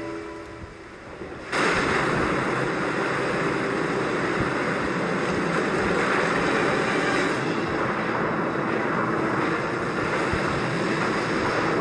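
Soft music fades out, and about a second and a half in a loud, steady rush of sea surf and water noise starts abruptly and keeps on.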